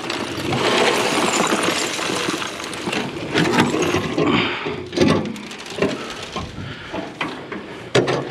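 Scrap being shoved and loaded by hand: a rough scraping, clattering rattle, then a few sharp knocks, the strongest about five seconds in and near the end.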